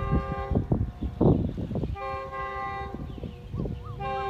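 A distant diesel locomotive's multi-tone air horn sounding in long, steady blasts as the train approaches: one ends about half a second in, another runs through the middle, and a third starts near the end. Between the first two there is a loud burst of rough low noise.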